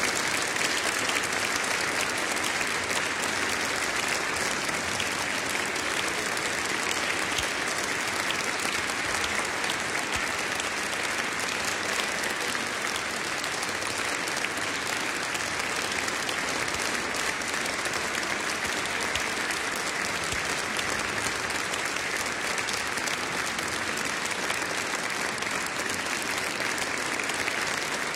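Large concert audience applauding, a steady even clapping that neither builds nor fades.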